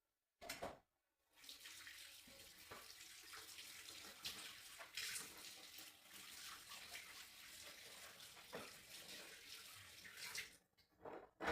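Water running from a tap for about nine seconds, then shut off, with a short knock just before it starts and two more after it stops.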